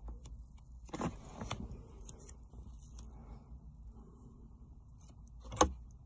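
Handling noise from a plastic hazard-light switch module being picked up and turned in the fingers: faint rustling with a few light plastic clicks about a second in and a sharper click near the end.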